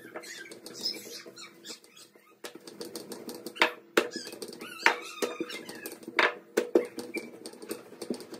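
Hands patting and pressing a ball of dough flat on a plastic board, then a wooden rolling pin starting to roll it out, giving scattered sharp taps and knocks over a steady low hum.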